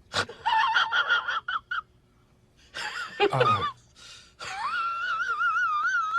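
High-pitched, squeaky, voice-like sound effect: a quick run of short chirps, then a squeak that falls in pitch, then a long warbling squeal that rises and wavers.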